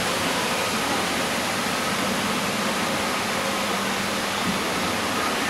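Steady, even rushing noise of the boat ride's indoor jungle hall, with a faint low hum in the middle.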